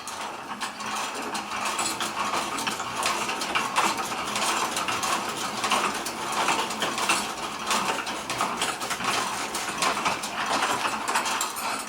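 Restored Champion Forge No. 200 post drill being hand-cranked and fed by its manual lever to bore through pressure-treated wood, its gearing giving a steady stream of rapid clicks and rattles.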